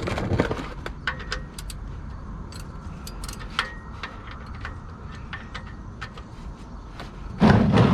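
Hands working on the vehicle's engine bay and oil-change parts: scattered light clicks and metallic clinks over a low steady background rumble. A louder scraping thump comes near the end.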